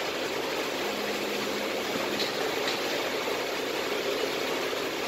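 Tajima multi-needle embroidery machine running, its needle stitching through backpack fabric with a steady, dense mechanical clatter.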